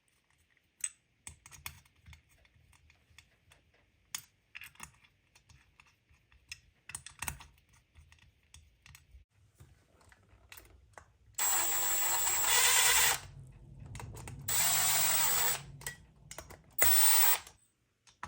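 Light clicks and taps of small metal engine parts being handled, then three loud hissing blasts of about a second each that start and stop abruptly.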